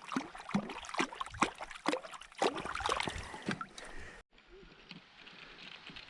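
Trout splashing and thrashing in the river water as it is handled and let go, a quick run of sharp splashes. They cut off abruptly about four seconds in, leaving a faint steady wash of water.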